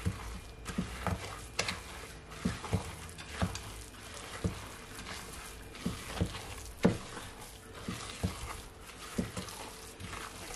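Wooden spoon stirring thick cookie dough in a glass mixing bowl: a soft scraping, squelching rustle with irregular sharp knocks of the spoon against the glass, about one to two a second.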